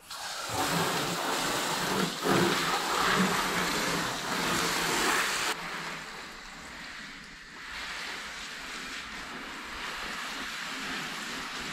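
Water spraying from a garden hose nozzle and splattering on a car's body, a steady hiss that is louder in the first half and drops suddenly about halfway through.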